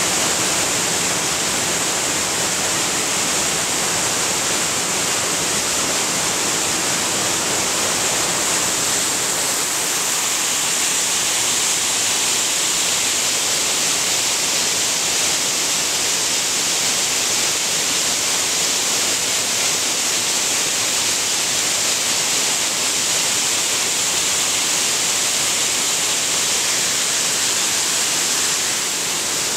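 Waterfall pouring down a narrow rock cleft: a steady, hissing rush of falling water.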